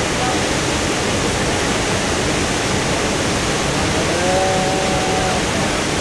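Large waterfall plunging into its pool: a steady, loud rush of falling water. A brief voice is heard faintly through it about four seconds in.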